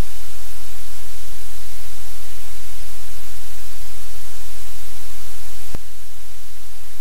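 Loud, steady hiss and static with a low electrical hum, the noise of a livecam's audio feed. A sharp click about six seconds in as the feed switches cameras, after which the hiss is a little quieter.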